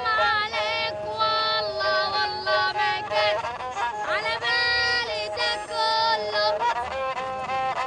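A boy singing solo, unaccompanied, in long held notes with sliding ornaments between them. Near the end the notes become shorter and more repeated.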